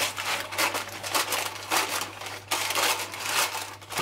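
Kitchen scissors snipping through parchment paper, with the paper crinkling and rustling in a string of irregular cuts.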